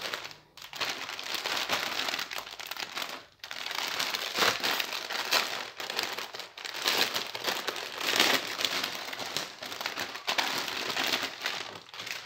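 Thin clear plastic packaging bag crinkling and rustling as hands open it and handle the towel inside, with a couple of brief pauses.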